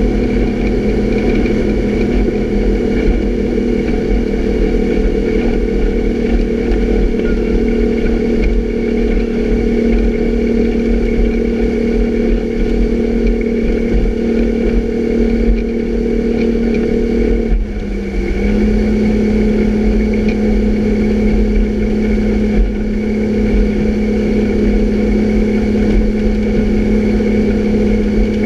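Motorboat engine running steadily at speed, with the wake rushing behind. About two-thirds of the way through it dips for a moment, then carries on at a slightly lower pitch.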